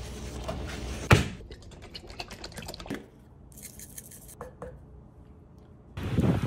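A single knock on a metal sheet pan about a second in, then a run of small clicks and a brief hiss of seasoning being shaken from a shaker onto a raw cabbage steak.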